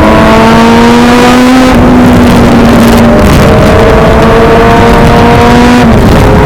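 Sport motorcycle engine accelerating hard through the gears. Its pitch climbs steadily, drops at an upshift about three seconds in, climbs again, and drops at another shift near the end.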